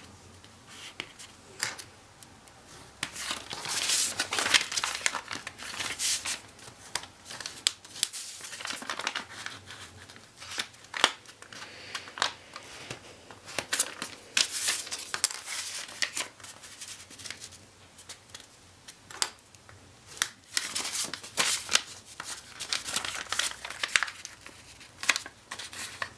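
Sheet of origami paper being handled, folded and creased: irregular crisp rustles and crackles as it is turned over and flattened, with sharp snaps of the creases being pressed in.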